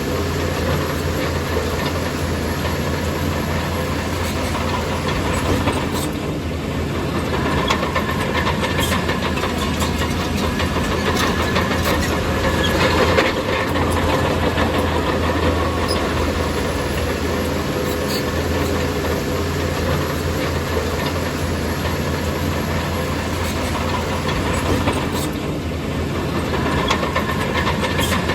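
Bulldozer's heavy diesel engine running steadily at work, with a deep low drone and a few short sharp knocks.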